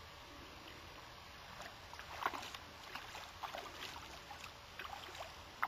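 A hooked brown trout splashing and thrashing at the surface of a spring creek: irregular splashes starting about one and a half seconds in, over a faint steady hiss.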